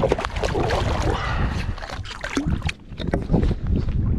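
Shallow bay water splashing and sloshing around a wading angler as he handles and releases a fish, with wind buffeting the microphone.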